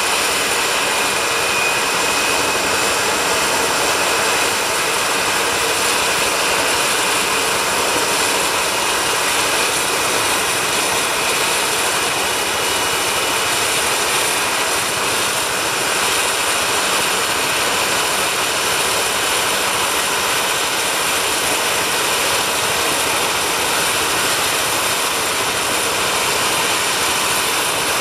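BK 117 helicopter's twin turbine engines running with the rotors turning while it sits on the ground before lift-off. The result is a steady, loud turbine whine with high steady tones over even rotor noise that does not rise or fall.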